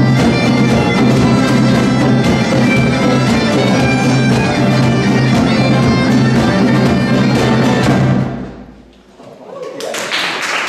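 Folk band playing with a bagpipe over strummed acoustic guitars and a hand drum: a steady bagpipe drone under an even strummed beat. The music fades out about eight seconds in, and crowd noise rises just before the end.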